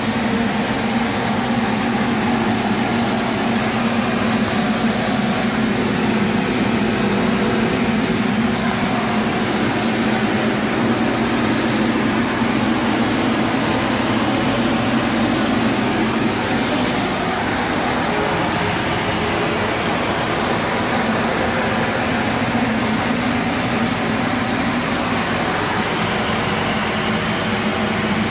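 A machine running steadily: an even rush of air over a low hum, dropping a little in level about two-thirds of the way through.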